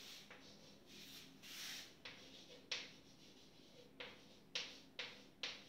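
Chalk writing on a chalkboard: faint, short scratches and taps of the chalk stick, about half a dozen strokes that come closer together in the second half.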